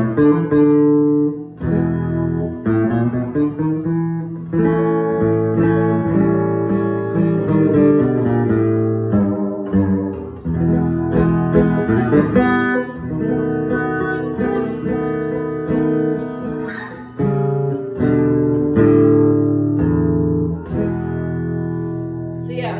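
Guitar played through a mixer and speaker: strummed chords and picked notes that ring on, with a new chord or phrase every second or two.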